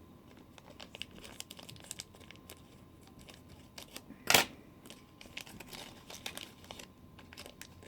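Toy packaging being crinkled and torn open by hand, with many small crackles and one sharp snap about four seconds in.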